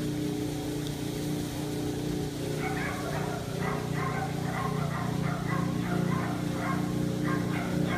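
Steady drone of a boat engine running, the kind that drives a fireboat's water cannon. From about two and a half seconds in, short sharp calls repeat over it, about two a second.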